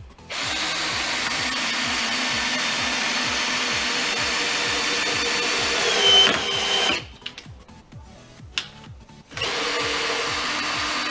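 Parkside cordless drill-driver driving a long 6 x 125 mm Torx screw into a pre-drilled wooden block. The motor runs steadily for about seven seconds, with a brief squeal as the first run ends. After a short pause it runs again.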